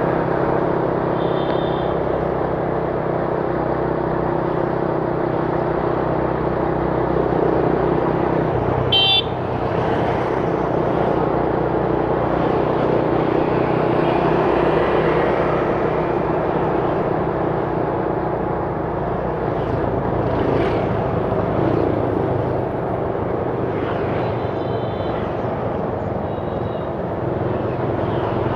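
Steady vehicle engine and road noise, with a brief high-pitched toot about nine seconds in.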